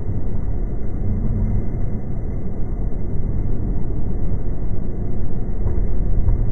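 Steady low rumble of a Tsukuba Express electric train running, heard from inside the passenger car.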